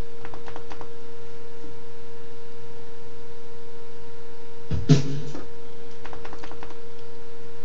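Ensoniq ASR-10 sampler playing back a sample as a steady held tone, with a few faint clicks in the first second and one short hit about five seconds in.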